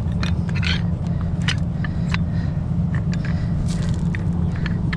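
A heavy truck's diesel engine idling steadily, with scattered sharp metallic clinks of chain and rigging hardware being handled.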